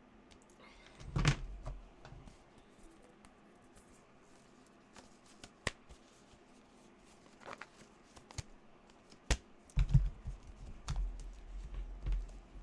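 Scattered handling noises: a thump about a second in, a few single sharp clicks, then a cluster of knocks and taps near the end, as of objects being picked up and set down.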